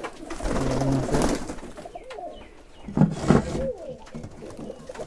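Domestic giribaz pigeons cooing in a loft: a low held coo early on, then more low coos rising and falling in pitch around the middle and near the end.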